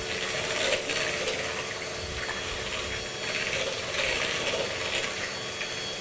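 Electric hand mixer running steadily, its motor holding one constant tone while the twin beaters whisk a sour cream, egg yolk and sugar batter and rattle against the plastic bowl.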